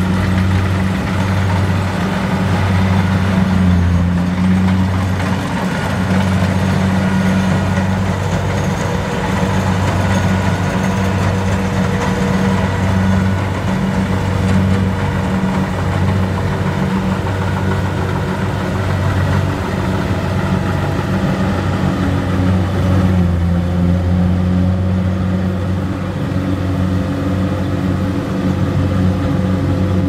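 Kubota DC-70Plus rice combine harvester's diesel engine running steadily as the machine harvests, a constant low drone. The higher-pitched part of the sound drops away somewhat in the last quarter as the harvester moves off.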